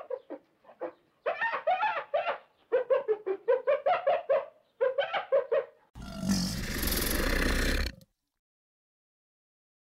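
Spotted hyenas giggling: several quick runs of short, high-pitched yelping notes. About six seconds in, a crocodile's harsh hiss takes over for about two seconds and cuts off suddenly.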